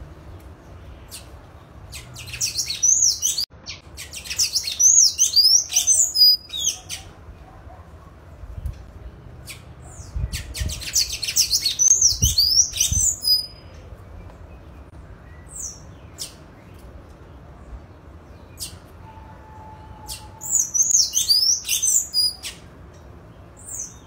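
Sayaca tanager singing: three bouts of high, squeaky twittering notes, each a few seconds long, with single short notes scattered between them.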